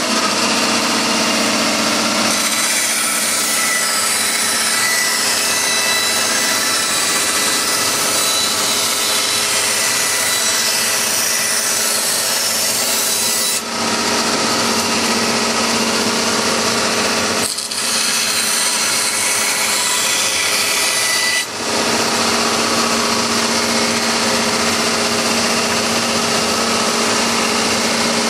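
Power saw running and cutting excess off a molded plastic orthotic shell, a steady loud machine noise with a constant motor tone. The cutting sound drops out briefly three times, about 14, 17 and 21 seconds in.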